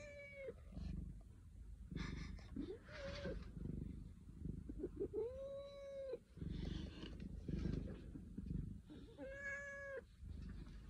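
Domestic cat meowing four times: a short meow at the start, a brief one about three seconds in, a longer drawn-out meow about five seconds in, and another near the end. A low rumble runs underneath.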